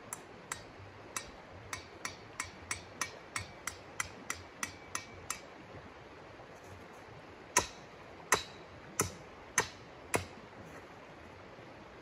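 Hammer driving a metal tent stake into the ground. About fifteen light strikes come over the first five seconds, quickening, each with a short metallic ring. Then come five harder blows, roughly two-thirds of a second apart. A river runs steadily underneath.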